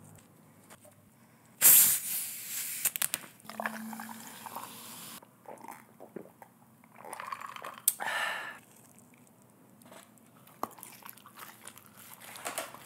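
Close-miked mukbang eating and drinking sounds from fast food and a cup drink: scattered handling clicks and wet mouth sounds, with a sudden noisy stretch about two seconds in and a short burst around eight seconds, separated by quiet gaps.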